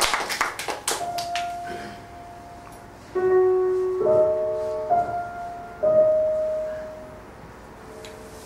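The last scattered claps of applause die away, then a slow, sparse piano melody plays: a few single held notes, each ringing out and fading before the next.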